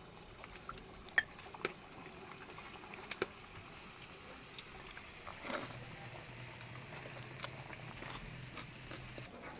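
Quiet sounds of eating by hand: poori torn and dipped into a watery potato curry, with faint scattered wet clicks and taps. A steady low hum comes in a little past halfway and stops just before the end.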